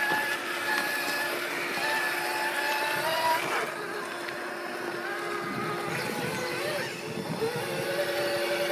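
Axial SCX6 1/6-scale RC rock crawler's electric motor and gearbox whining as it crawls over rock, the whine stepping up and down in pitch with the throttle.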